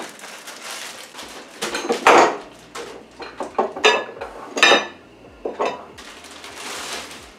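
Kitchen items clinking and knocking on a worktop: glass jars and dishes clattering in a run of separate knocks, some of them ringing briefly. Near the end comes a steadier rustle, like a plastic bread bag being handled.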